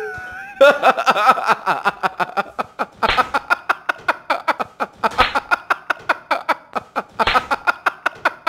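A person laughing hard and without a break, in rapid breathy 'ha' pulses about five a second, with short catches of breath between runs.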